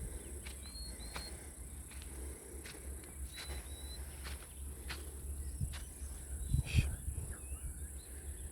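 Outdoor nature ambience: insects keep up a steady high-pitched drone while a bird gives short whistled chirps now and then. Scattered sharp clicks run through it, and a low thump about two-thirds of the way in is the loudest sound.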